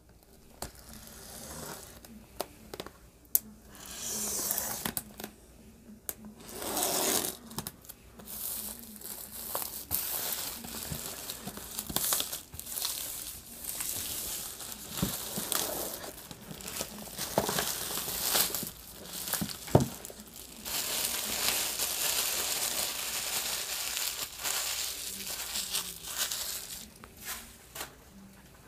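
Plastic shrink wrap being torn open and peeled off a cardboard box, crinkling and crackling in irregular bursts with sharp snaps, then a longer stretch of steady crinkling near the end.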